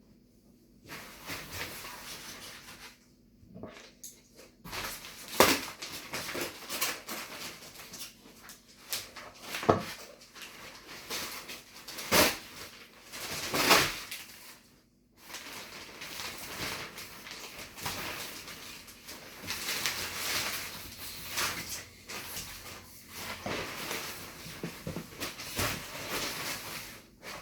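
Plastic wrapping being pulled and crumpled off a new washing machine and its packing straps removed. The rustling and crinkling is irregular, with sharp snaps and clicks scattered through it.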